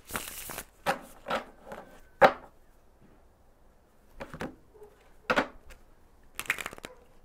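A tarot deck being shuffled by hand in short bursts of riffling and tapping cards, with pauses between; the sharpest burst comes about two seconds in.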